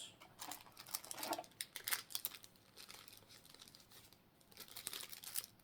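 Plastic packaging crinkling in the hands as the contents of a card box are pulled out, in short irregular rustles, busiest in the first two seconds and again near the end.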